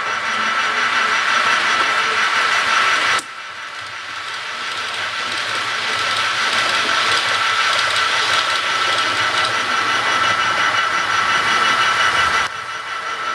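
HO scale model locomotive's sound decoder playing engine running sounds: a steady hiss with high held whine tones. It drops sharply about three seconds in and again near the end, then builds back up each time.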